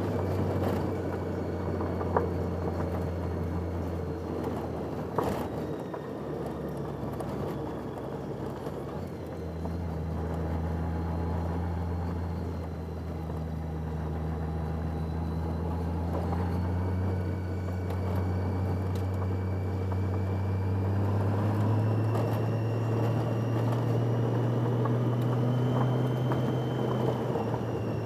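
Motorcycle engine running at road speed under wind and road noise, its pitch stepping up a few times as it speeds up.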